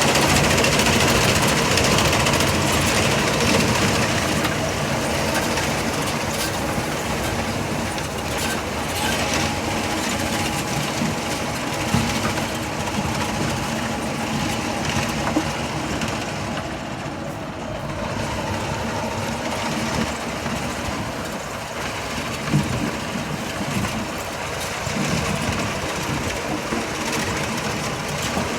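Tractor-driven potato haulm topper running: a steady mechanical clatter over the tractor engine's drone, with a few sharp knocks.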